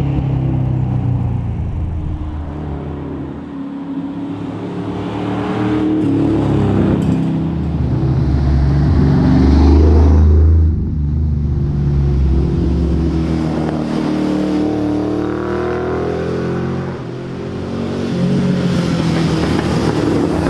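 Valiant Charger rally car's engine at racing pace, revving up and down through the gears. It is loudest about ten seconds in, then drops off suddenly before building again.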